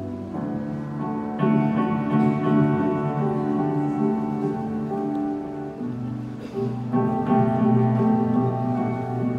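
Live instrumental music: slow, held keyboard chords, with new chords coming in about a second and a half in and again near seven seconds.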